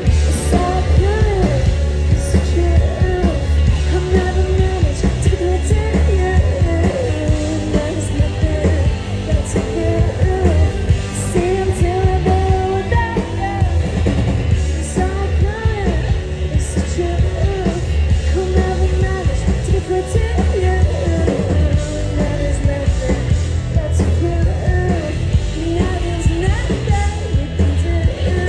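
Live rock band playing a song: electric guitars, bass guitar and drum kit, with a lead vocal sung over the top, heavy in the low end.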